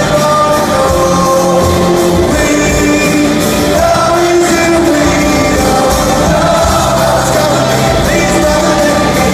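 Live rock band playing with a sung vocal line over guitars, bass and drums, amplified in a large hall.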